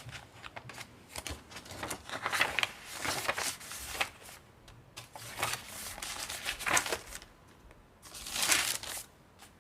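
Paper rustling and crinkling as junk journal pages, pocketed journal cards and a small paper booklet are handled and turned, in irregular bursts; the loudest rustle comes near the end.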